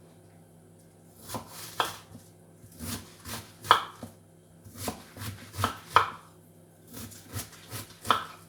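A knife chopping cabbage on a cutting board: irregular sharp knocks, some in quick pairs, starting about a second in.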